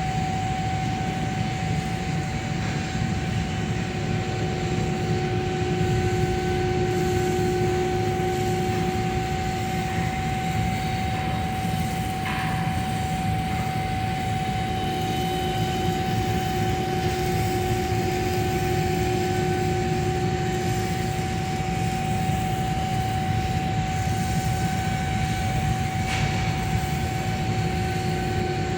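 Steady machinery drone with a constant high whine running unchanged throughout, and a faint tick about twelve seconds in and again near the end.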